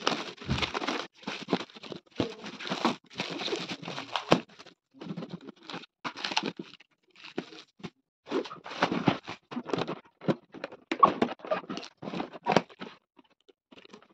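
Plastic packaging film being torn and crinkled by hand, in irregular bursts of rustling and ripping with a few sharp crackles between short pauses.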